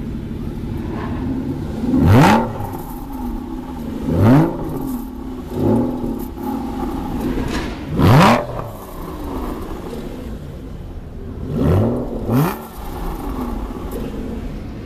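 Aston Martin V12 Vantage's V12 engine idling and blipped about six times, each rev rising fast and falling straight back to idle, one of them smaller, the last two close together near the end. Heard close to the tailpipe.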